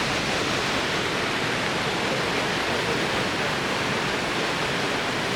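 Steady rush of a mountain river pouring through rapids and a waterfall, an even unbroken roar of water.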